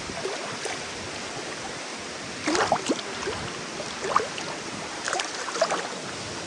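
Waterfall and stream water rushing steadily, with short splashes and gurgles breaking through a few times, about two and a half seconds in, around four seconds, and again a little after five seconds.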